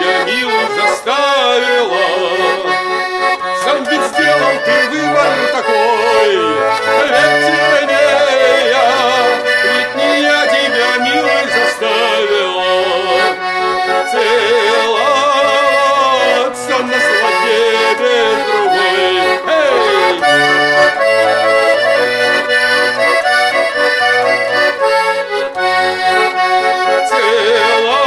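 Russian garmon (button accordion) playing an instrumental interlude between sung verses: a wavering melody over a steady rhythm of bass notes and chords.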